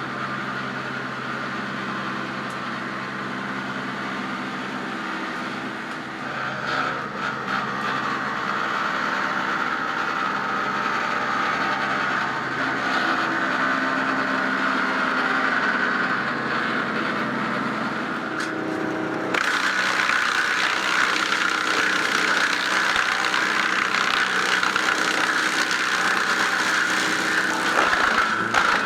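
Timberwolf TW 190TFTR tracked wood chipper running steadily, its engine note carrying a high whine. About two-thirds in the sound changes abruptly to a louder, harsher noise.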